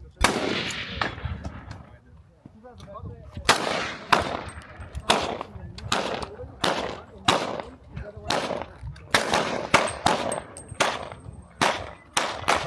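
Gunshots from target shooting: a single shot right at the start, then from about three seconds in a long string of rapid shots, roughly two a second and coming faster near the end, each sharp crack trailing off in a short echo.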